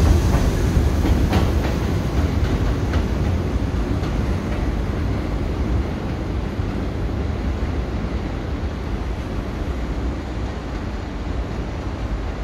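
Subway train pulling out past the platform. The steel wheels clack over rail joints a few times in the first three seconds, then a low rumble slowly fades as the train recedes.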